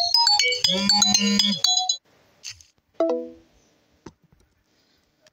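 Short electronic jingle: a held synthesizer tone under a quick run of high, stepping notes, stopping about two seconds in, then one brief note about a second later.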